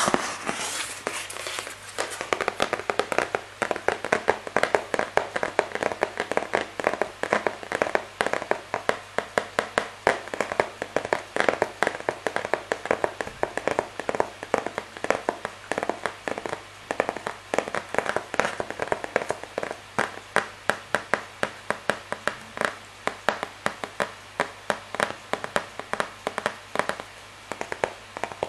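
Fingers tapping quickly on a printed product box, a steady run of light, sharp taps several times a second. The first couple of seconds have heavier handling and rustling.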